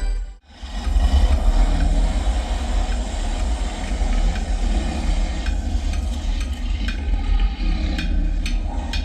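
Samsung HW-Q990C soundbar playing heavy, rumbling deep bass with a dense noisy layer above it. The sound cuts out briefly about half a second in.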